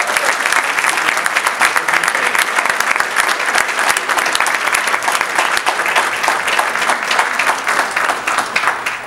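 An audience applauding, a dense steady clapping that starts to die away right at the end.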